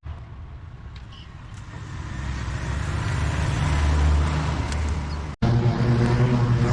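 Engine running, growing louder over a few seconds; after a sudden cut about five seconds in, a steadier, louder engine hum.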